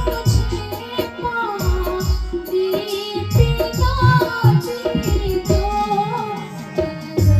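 A song playing: a voice sings a wavering melody over a regular drum beat.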